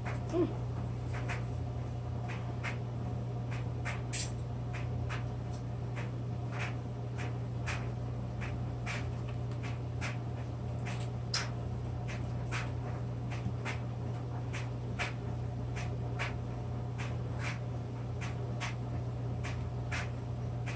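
Light, regular ticks about twice a second over a steady low hum.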